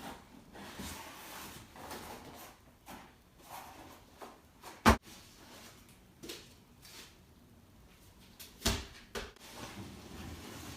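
Cardboard box and packaging being handled and opened: rustling and scraping, with a sharp knock about five seconds in and another near the nine-second mark.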